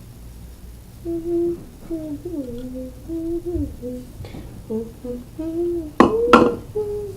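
A person humming a wordless tune in short held and sliding notes, with two sharp knocks in quick succession about six seconds in.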